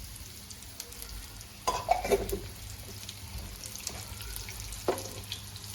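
Rava-coated kingfish pieces shallow-frying in a little hot oil: a steady sizzle with light crackles, a sudden louder burst a little under two seconds in, and a sharp click near the end.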